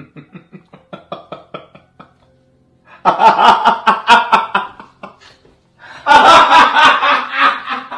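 A person laughing: quick, quiet snickers for about two seconds, then two loud bouts of laughter.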